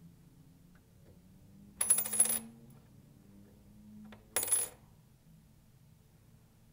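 Metal coins clinking as they are handled: two short jingles about two and a half seconds apart, the first longer, each with a high ringing tone.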